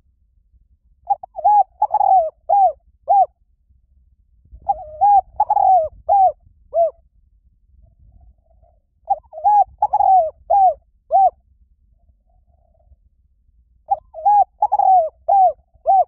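Spotted dove cooing in repeated phrases of five or six mellow coos each, four phrases about four and a half seconds apart.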